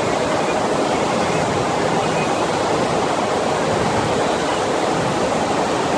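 Steady rushing of the pumped water sheet on a FlowRider wave machine, pouring continuously over the ride surface.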